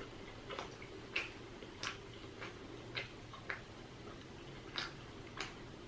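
Close-up mouth smacking while chewing: a series of short, wet clicks from the lips and tongue, irregularly spaced, about eight in all.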